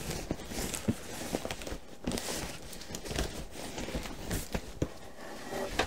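Burlap sack rustling and dragging as it is pulled up off a stack of cardboard parcels, with small knocks and scrapes from the boxes.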